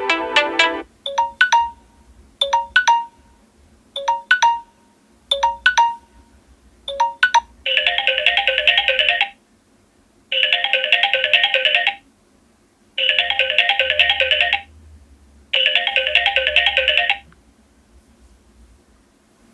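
Samsung Galaxy Note 8 stock ringtones playing. First comes a pattern of short electronic beeps in pairs, repeating about every second and a half. Then a warbling, telephone-bell-style trill rings four times, each ring about a second and a half long with a short pause between.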